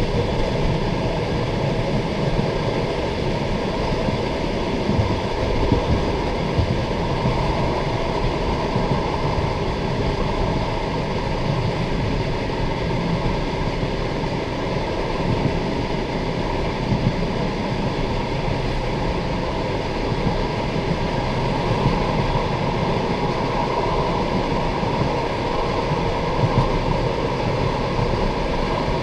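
Passenger train carriage running between stations, heard from inside: a steady rumble of wheels on the rails with the deep clatter of the wheels and a few louder knocks.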